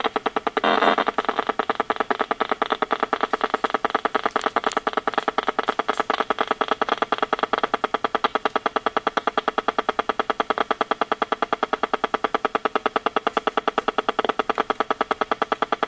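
RF meter's audio output rendering Wi-Fi radio signals as a fast, even train of buzzing clicks, with a brief louder, denser burst about a second in.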